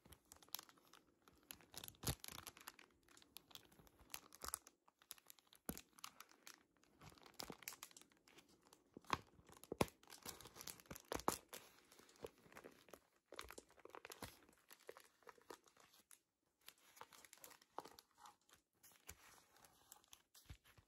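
Crinkling and crackling of packaging handled by hand for ASMR, in irregular bursts of sharp crackles and rustles, with a brief pause about 16 seconds in.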